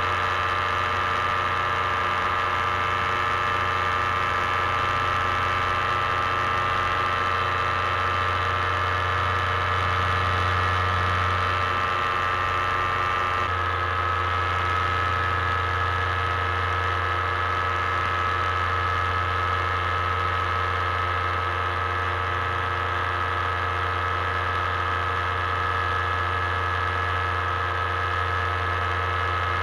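Paramotor engine and propeller running steadily in flight, a constant droning hum. The tone shifts slightly about halfway through.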